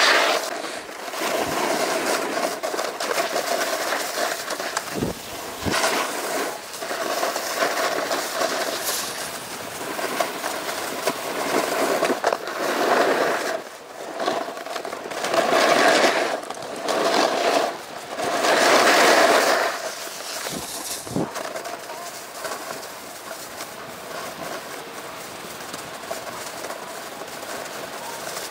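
Snowboard sliding over firm groomed snow, its edges scraping in loud surges on the turns around the middle, with a few sharp knocks. After that it settles to a quieter, steady hiss as the board glides.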